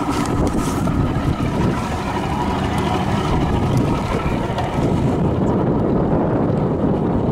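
Wind buffeting the camera microphone, a steady low rumble.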